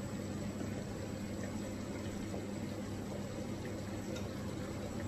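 Steady low hiss of a pan of mushrooms, onion and spices simmering in a little water, with a faint steady hum underneath and a few light ticks.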